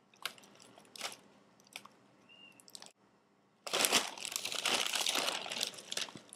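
Crinkling of a plastic cereal-bag liner and rattling of Cap'n Crunch pieces as a hand digs into the bag. There are a few scattered clicks at first, then a dense crackling burst from about four seconds in that lasts a couple of seconds.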